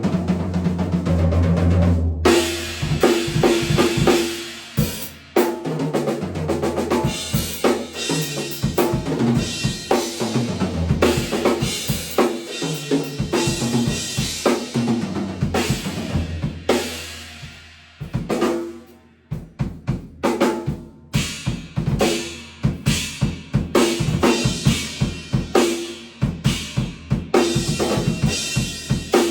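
A new Tama Starclassic drum kit being played: bass drum, snare, ringing toms and cymbals, grooves with fills, caught raw on an iPhone's microphone. The drums are only roughly tuned. The playing thins out briefly about two-thirds of the way through, then picks up again.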